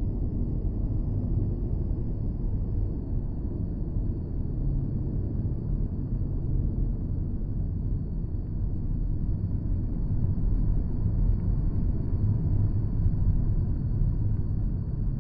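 Designed sci-fi ambience of an alien landscape: a steady, low rumbling drone with a faint thin high hiss above it, swelling slightly in the last few seconds and with no distinct events.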